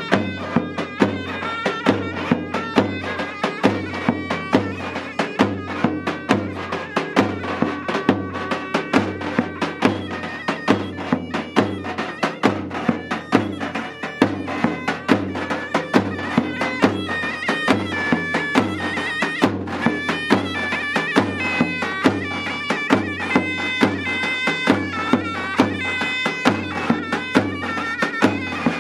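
Davul and zurna playing a folk tune. The big double-headed davul is beaten with a mallet at about two strong strokes a second, under the zurna's continuous melody of stepping notes.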